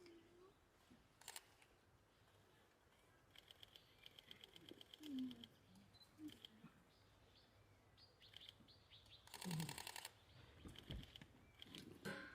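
Quiet background broken by a few short bursts of very rapid clicking, the loudest just before the ten-second mark, with faint low blips in between.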